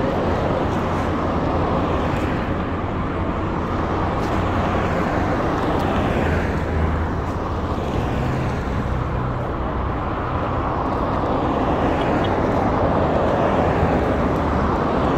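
Road traffic: cars passing close by one after another, each swelling and fading, over a steady low rumble of engines.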